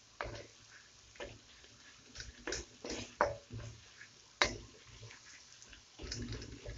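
Spatula scraping and knocking against a wok while stirring frying onions: a few irregular scrapes and clicks, the sharpest about three and four and a half seconds in.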